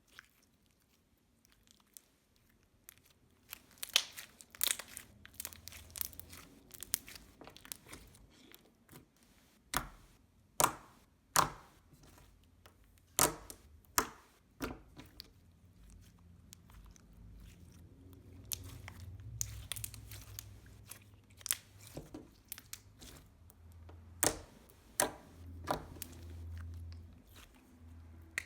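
Slime being worked by hand: irregular sharp pops and clicks as air bubbles in the slime burst, with quieter squishing between them.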